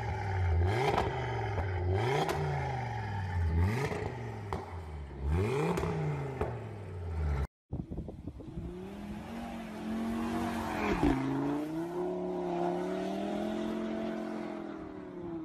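Audi RS3's turbocharged five-cylinder engine free-revved several times with the exhaust valve open, each blip rising and falling sharply. After a sudden cut, a car engine holds high revs under load, with a brief dip about eleven seconds in.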